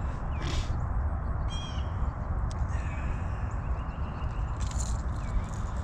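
Steady low rumbling noise, with a few short, high bird calls about half a second and a second and a half in.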